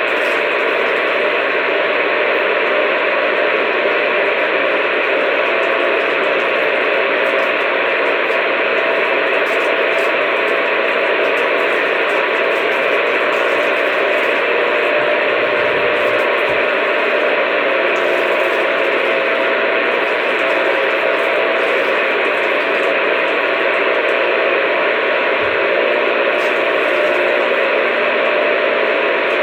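Steady static hiss from a two-way radio receiver with no voice on the channel, the noise held at an even level.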